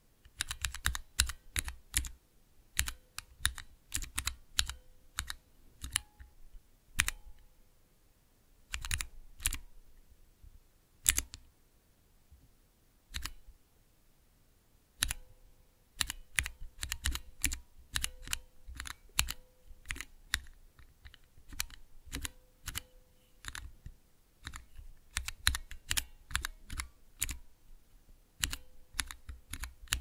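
Typing on a mechanical keyboard with Cherry MX switches: irregular runs of sharp key clicks and clacks, with a lull of a few seconds near the middle where only a stroke or two falls.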